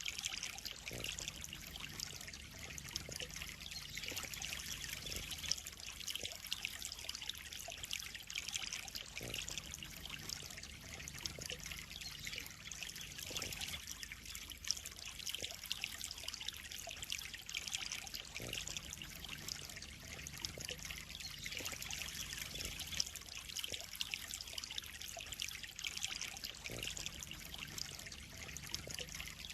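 Water trickling and splashing steadily into a koi pond, with a low steady hum underneath.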